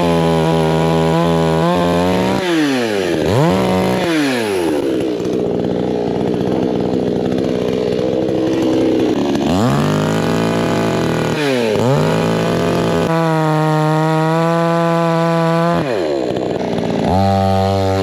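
Chainsaw engine running hard while cutting wood. Its pitch drops sharply and climbs back up about four times as the revs fall and recover, with a rougher stretch in between.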